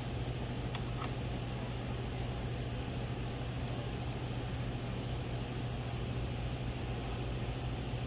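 Steady low mechanical hum and hiss, with a faint high hiss pulsing about three to four times a second. A couple of light clicks about a second in as wire connectors are handled.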